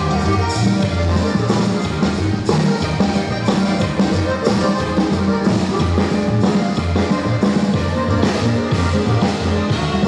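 Upbeat dance music with a steady drum beat and a prominent bass line.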